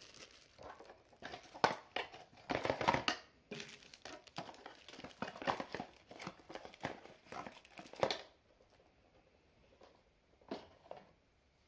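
Crinkling of a small clear plastic bag of mounting screws being handled and opened, with some handling of the cardboard box; the crackling stops about eight seconds in, and a single light knock follows near the end.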